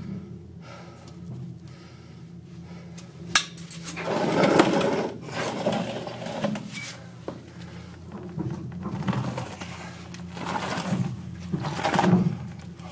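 Scraping and shuffling of a person crawling through a cramped, wet tunnel, in irregular surges over a steady low hum, with one sharp click a few seconds in.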